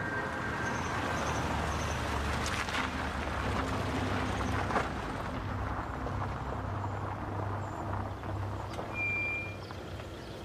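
A Volkswagen car driving up a country lane and pulling into a farmyard: tyre and engine noise for the first few seconds, then the engine idling low as the car stands.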